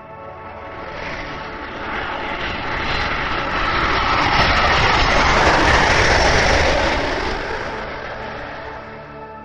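Jet airliner flying overhead. The engine noise swells to a peak a little past halfway, then fades as the plane passes.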